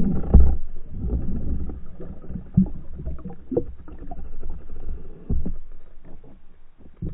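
Muffled underwater noise through an action camera's waterproof housing: low rumbling water movement, loudest in the first second, with dull knocks and bumps scattered through it.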